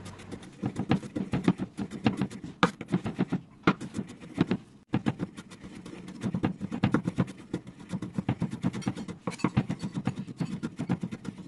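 Chef's knife mincing garlic cloves on a wooden cutting board: rapid, uneven chopping strokes, several a second, with a brief pause near the middle.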